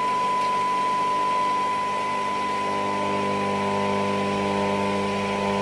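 Transistor radio's loudspeaker giving out a steady test tone from a tuned-in signal, with a hum and hiss underneath, while its FM RF trimmer is adjusted for maximum output during alignment.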